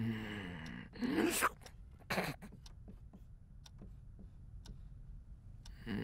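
A dozing student's sleepy vocal sounds: a low groan, then a short rising snort-like breath about a second in and a brief breathy rasp just after. A few faint ticks follow, from a marker on a whiteboard.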